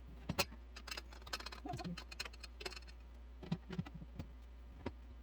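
Dishes clinking and knocking against the rack of a portable countertop dishwasher as they are loaded. It comes as an irregular scatter of sharp clicks and taps, the loudest just under half a second in.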